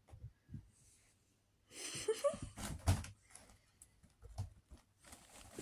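Crinkly nylon cat tunnel rustling as a kitten scrambles in it, with a sharp knock about three seconds in and a longer rustle starting near the end.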